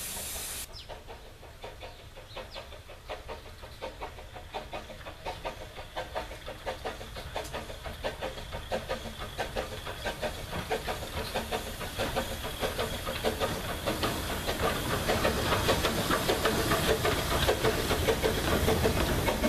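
Narrow-gauge steam locomotive Dolgoch, a Fletcher Jennings 0-4-0 well tank, approaching and passing with its train. A hiss cuts off under a second in, then a steady run of exhaust beats grows louder as the engine nears, joined near the end by the rumble and rattle of the carriages rolling by on the rails.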